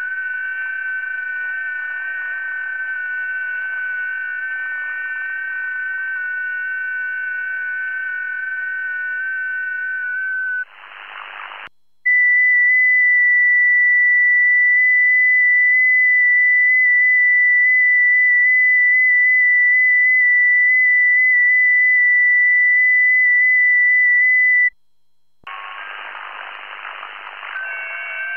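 FT8 digital-mode signals in a shortwave receiver's audio on 40 m: several overlapping steady tones at different pitches over static hiss. About eleven seconds in they give way to a single clean tone held for about twelve and a half seconds, the station's own FT8 transmission. It stops suddenly, and the hiss and the chorus of received FT8 tones return near the end.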